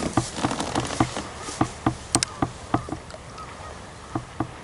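Fishing rod and baitcasting reel being handled in a kayak's rod holder: a run of irregular light clicks and taps, a few a second, thinning out near the end.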